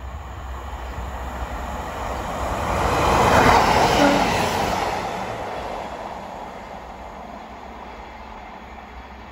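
A Sprinter diesel multiple unit passing close by: its rumble swells to a peak about three to four seconds in, then fades away.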